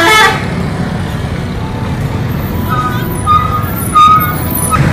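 The last note of a tour bus's multi-tone musical horn cuts off right at the start, then the bus's diesel engine rumbles steadily as it passes close by. A few short beeping tones come in over the rumble in the second half.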